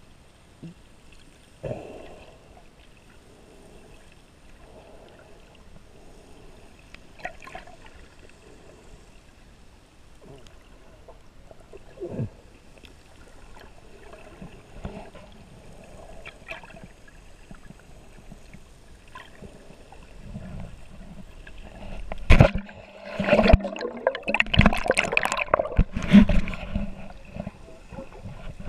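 Underwater sound through a GoPro's waterproof housing: a muffled water wash with a few light knocks. About 22 seconds in comes a loud run of knocks and scraping against the housing lasting several seconds.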